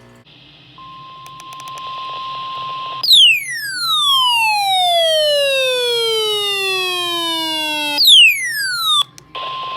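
Electronic sounds from a radio: hiss with a steady high beep, then a loud whistle that falls steadily in pitch over about five seconds. A second falling whistle breaks off after about a second, and the hiss and beep come back near the end.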